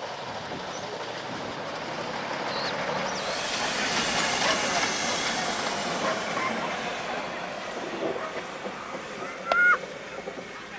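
Narrow-gauge steam locomotive running, with a steady hiss of steam and running noise. One short, loud whistle blast near the end.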